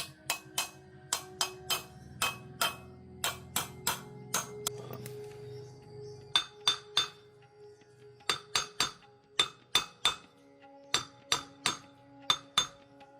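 A hammer tapping on metal: sharp, ringing strikes in quick groups of two to four, with background music.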